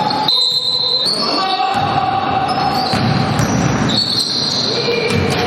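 Basketball game on a wooden gym floor: sneakers squeaking in long squeals that shift in pitch, with the ball bouncing and the sound ringing in the hall.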